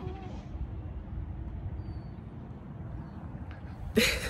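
Low steady outdoor rumble, with a brief loud call about four seconds in.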